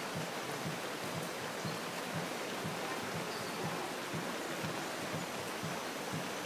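Steady rain falling: an even hiss with a scatter of small drop taps underneath.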